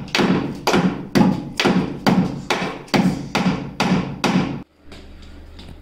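Hammer driving nails into pine boards: steady blows, about two a second, some ten strikes, which cut off abruptly near the end.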